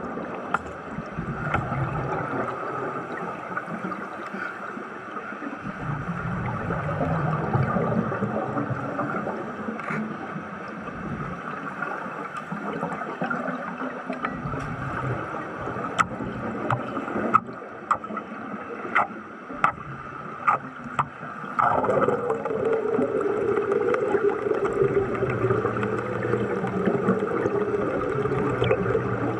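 Underwater gurgling and rushing air, with a run of sharp clicks about two-thirds through. Near the end it turns into a steadier rush.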